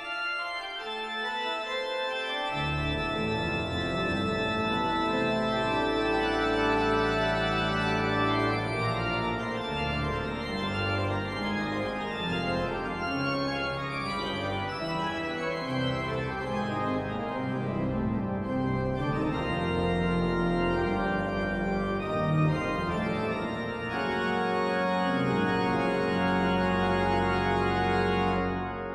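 Marcussen pipe organ (three manuals and pedal, 56 stops) playing a toccata with many notes sounding together, the deep pedal bass coming in about two and a half seconds in.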